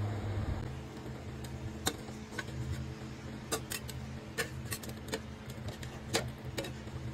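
Metal tongs and a steel ladle clicking and clinking against the rim and sides of a stainless steel stockpot as a whole chicken is turned in simmering soy braising liquid, about a dozen irregular sharp clicks, the loudest about two seconds in and near the end. A low steady hum runs beneath.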